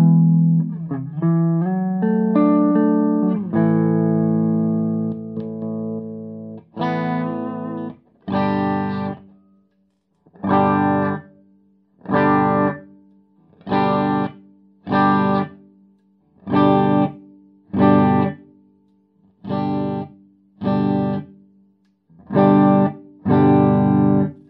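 Electric guitar played through a Rhodes Artemis three-channel amp with a G Major 2 effects unit in the loop, on the bridge pickup. A flowing run of notes and chords for about eight seconds, then a string of about eleven short chord stabs, roughly one every second and a half, each cut off sharply with silence between.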